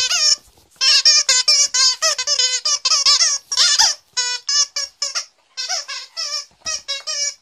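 Squeaker in a dog toy squeaked over and over in quick, uneven bursts as a cocker spaniel puppy chews it, with a brief pause about half a second in and another just past the middle.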